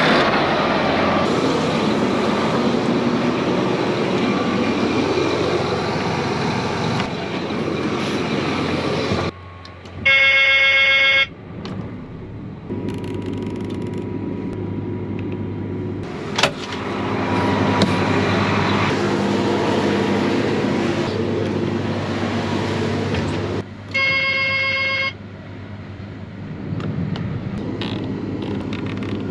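Vehicle engines running steadily. Two short horn blasts sound, one about ten seconds in and one about twenty-four seconds in.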